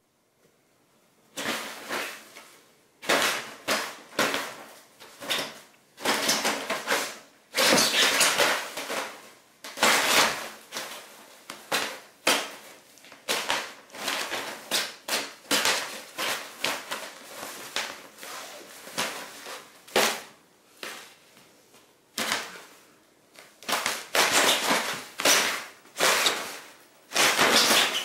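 A fabric pop-up cat tunnel rustling and crinkling in loud, irregular bursts as a cat thrashes, rolls and kicks around inside it. There is a brief lull about two-thirds of the way through.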